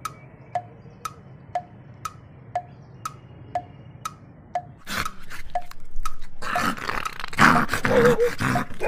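A wood-block tick beat, about two ticks a second. From about five seconds in, a louder, rough tiger-roar sound effect comes in and builds.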